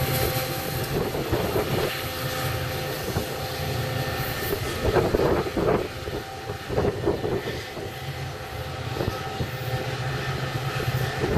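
EMD GP40WH-2 diesel locomotive's turbocharged two-stroke V16 working under load as it pulls a commuter train away from a stop, laying down exhaust smoke. The steady engine drone slowly fades as the train moves off, with uneven bursts of rushing noise about halfway through.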